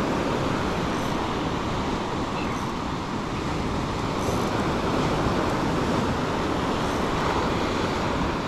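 Steady rush of surf breaking and washing up a sandy beach, mixed with wind noise on the microphone.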